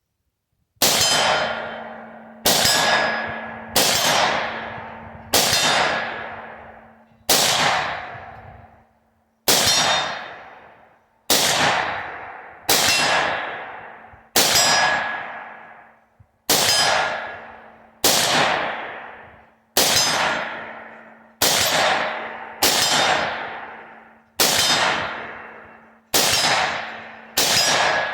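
About seventeen semi-automatic shots from a Bushmaster XM-15 AR-15 rifle (.223/5.56), one every one and a half to two seconds, each hitting a steel gong target. Every hit rings out in a long, fading metallic clang that dominates each shot.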